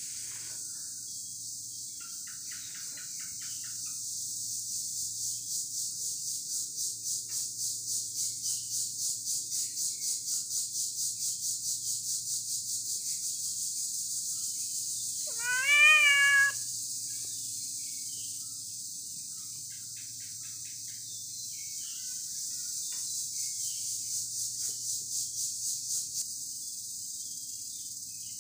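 Domestic cat meowing once, about halfway through: one call that rises and then holds for about a second. A steady high pulsing insect chorus runs underneath throughout.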